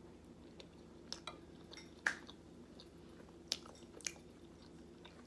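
Quiet close-up chewing of biscuits and gravy, with a few short, sharp mouth clicks at irregular spacing, the loudest about two seconds in, over a faint steady hum.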